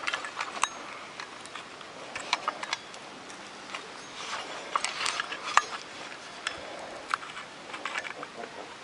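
Scattered metallic clicks and clinks of a nut and washer being handled and fitted onto a walk-behind tractor's cooling-fan shaft, irregular and light.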